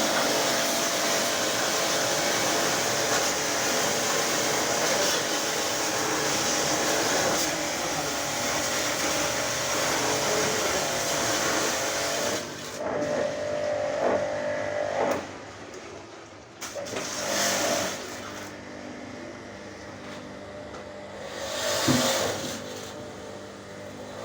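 Electric pressure-washer pump running and spraying water steadily, then shutting off about halfway through, followed by three short bursts of spraying.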